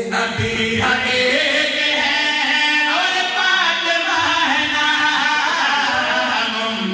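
Men's voices singing a devotional qaseeda into microphones, a lead reciter with others joining in, in long drawn-out melodic lines.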